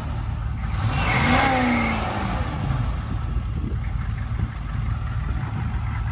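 Military M1009 Blazer's 6.2-litre V8 engine revved once, its pitch rising and falling about a second in, then settling back to a steady low idle.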